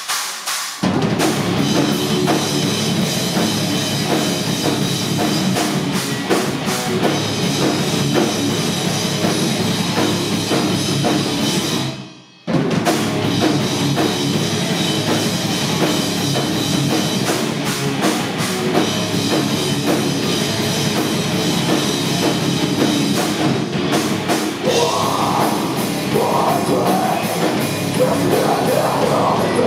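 Live metal band playing loud: drums, bass and guitars kick in about a second in, stop dead for a moment near the middle, then crash back in. A female singer's vocals come in over the band near the end.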